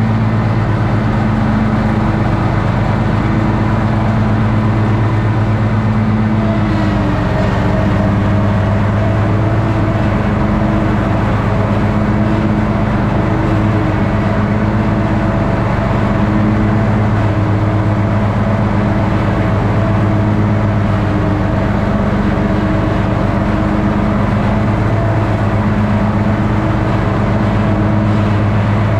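Toro ride-on lawn mower's engine running steadily while mowing grass, a loud continuous drone that swells and eases slightly, with a small change in its tone about seven seconds in.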